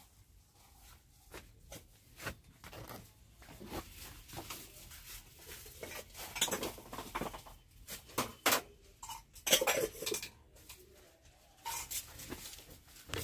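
Scattered light clinks and knocks of metal parts mixed with rustling, coming in irregular clusters that are busiest about six and ten seconds in, with a couple of short squeaks in the later part.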